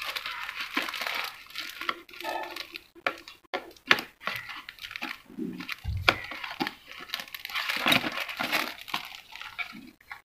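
Paintbrushes being pulled out of the wire loops on a cardboard backing card: rustling and scraping of brush handles against card and wire, with scattered clicks and taps and a few dull thumps about six seconds in.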